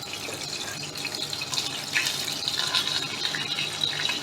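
Fried fish pieces sizzling in hot oil in a pan just after the gas is turned off: a steady hiss with scattered crackles, growing gradually louder.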